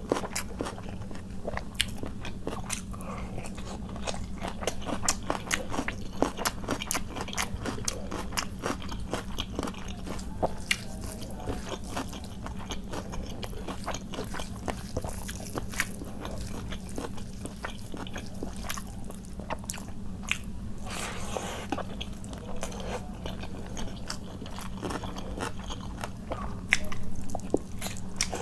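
Close-miked chewing and mouth sounds of a person eating bhuna khichuri and chicken curry by hand: a dense run of wet smacks and sharp clicks, with a louder bite near the end. A steady low hum runs underneath.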